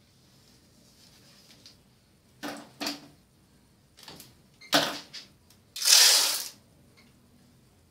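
Plastic diffuser sheets of an LED TV backlight being handled and pressed flat: a few short crinkles and rustles, the longest and loudest about six seconds in.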